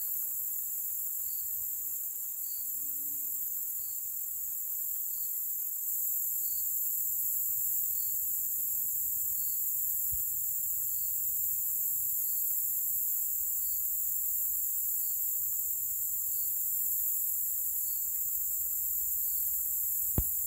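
A steady, high-pitched chorus of insects, with a separate softer chirp repeating regularly about every second and a third. There is a faint click about halfway through and a sharper click just before the end.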